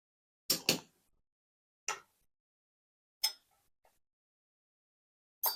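Sharp metallic clacks from the steel levers of a Hermann Kühn Söhne Panzer safe lever lock as they are lifted out and set down. There is a quick double clack about half a second in, then three single clacks spaced about one and a half seconds apart.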